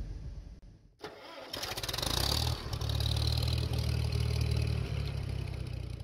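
An engine starts about a second in, with a noisy burst of cranking before it catches, then settles into a steady low idle.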